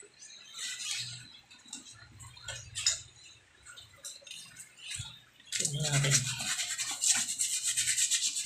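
A paintbrush's bristles scrubbed back and forth in rapid, even strokes, starting about halfway through. Before that come scattered light clicks and knocks of handling.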